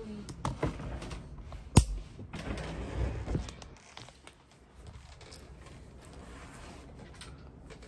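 Handling noise from a hand gripping and adjusting the recording camera on its stand: a few knocks and one sharp click about two seconds in, then rustling against the microphone. The second half is quiet room tone.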